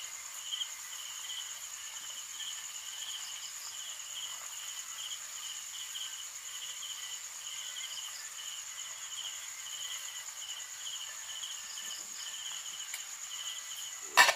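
Night insects calling: one steady high-pitched trill, with a second insect chirping about twice a second over it. A single sharp knock near the end.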